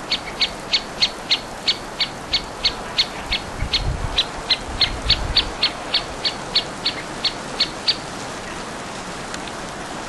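Black woodpecker calling: a long series of about twenty-five short, high notes, roughly three a second and slightly uneven in spacing, stopping about eight seconds in.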